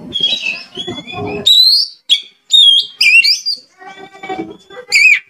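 Oriental magpie-robin singing a loud, varied song of sharp whistled notes that slide up and down, with a harsher buzzy phrase about four seconds in.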